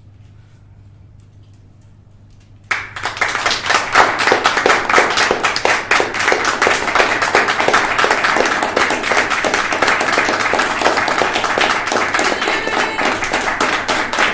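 Audience applause starting abruptly about three seconds in and going on steadily as dense clapping; before it, only a low hum.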